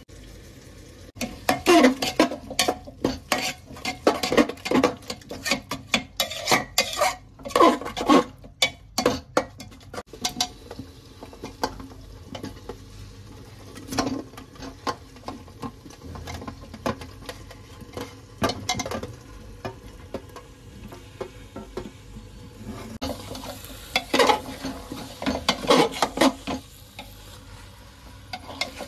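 A steel spoon scraping and knocking against the inside of an aluminium pressure cooker as masala and chicken are stirred, over a faint frying sizzle. The stirring comes in clattering runs for the first ten seconds and again about 24 seconds in, with only scattered knocks in between.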